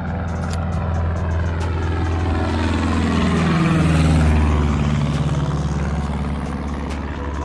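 Low-flying propeller airplane passing close overhead on its approach to land. Its engine-and-propeller drone grows loud, peaks about four seconds in with a drop in pitch as it goes by, then fades.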